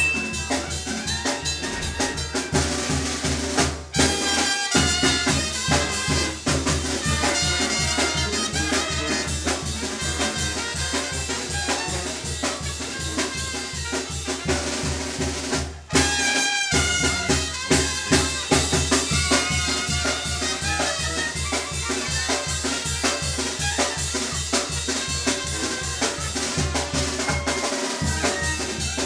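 Live Mexican brass band (banda) playing dance music: tuba, saxophones and trumpets over a drum kit with snare and cymbals keeping a steady beat. The band stops briefly about four seconds in and again at about sixteen seconds, coming back in each time with loud drum hits.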